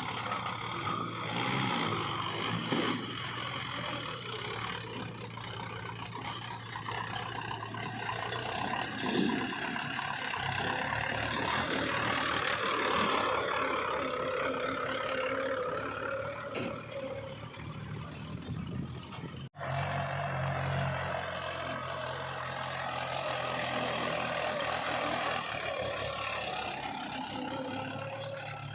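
Engine running steadily, with scraping and clattering over it. The sound cuts out for an instant about two-thirds through, then the engine continues.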